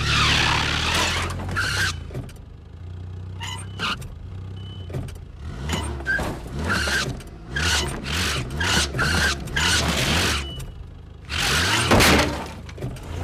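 Car engine running and revving in quick repeated spurts with tyres squealing as the car and boat trailer are jerked back and forth, two to three spurts a second in the second half, and a loud burst near the end.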